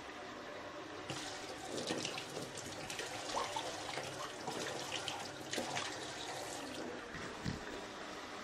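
Water running from a kitchen tap into a sink, turned on about a second in and splashing unevenly.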